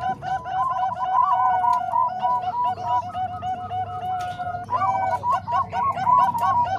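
Zebra doves (perkutut) cooing in quick, repeated phrases of short notes, several birds' songs overlapping one another.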